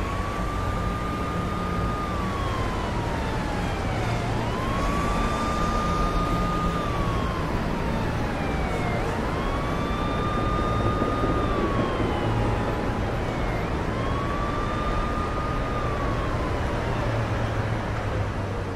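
An emergency vehicle's siren wailing in four slow cycles, each sweeping up, holding, then sliding down, over a steady low rumble of city traffic.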